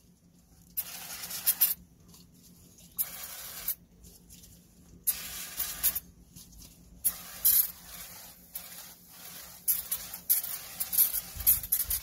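Aerosol brake cleaner sprayed onto a brake disc and caliper bracket, hissing in bursts of one to two seconds, then in a quicker run of short spurts near the end.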